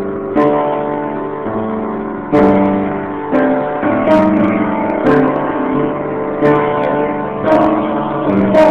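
Slow piano music with no voice: sustained chords ringing, with a new chord struck roughly once a second.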